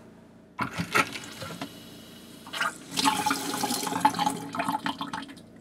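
Water running from a single-lever mixer tap, turned on by hand at the bare stem of its newly fitted cartridge: a few irregular spurts at first, a short lull, then a fuller run of a couple of seconds that stops shortly before the end. The tap is being turned back on to check that the new cartridge seals.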